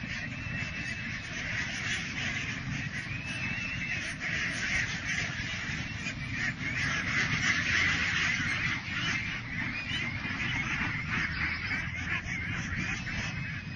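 A large flock of domestic ducks quacking all together in a dense, continuous chorus, loudest about halfway through.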